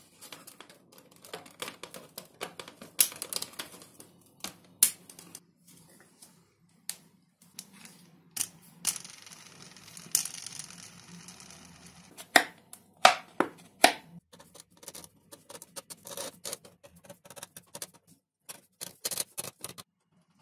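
Small clicks, taps and knocks from hands handling hobby parts: a plastic clevis being fitted on a foam model plane's tail, then foam wheels and a steel wire axle on a wooden tabletop. There is a brief soft scraping a little before halfway, and a few louder, sharp knocks about twelve to fourteen seconds in.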